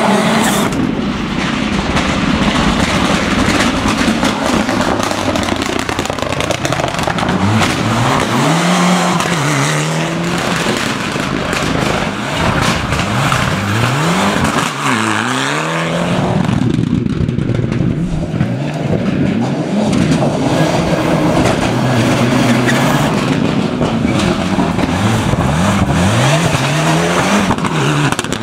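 Rally cars' engines at full throttle, revving up and dropping through gear changes over and over as they drive past. About halfway through, the engine note falls sharply and climbs again.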